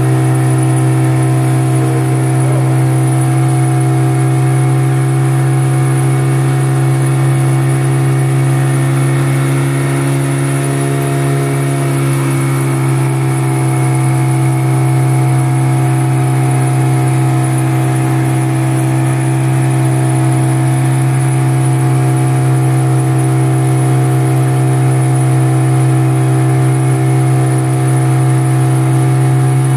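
Outboard motor of a small river boat running steadily at cruising speed, a constant loud drone.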